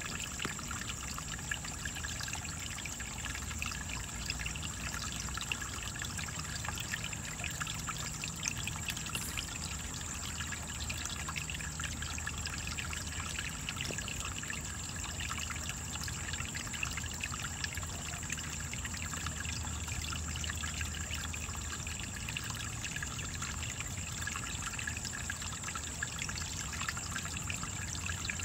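Steady trickle of running water, with a constant faint high-pitched whine above it.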